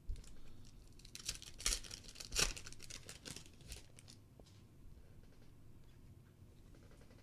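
Foil wrapper of a Prizm World Cup soccer card pack torn open and crinkled in a run of short rustling bursts, loudest about two and a half seconds in, then fainter handling of the cards.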